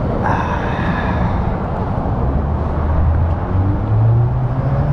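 Steady low outdoor rumble of road traffic, with a vehicle's engine hum rising in pitch through the second half as it passes.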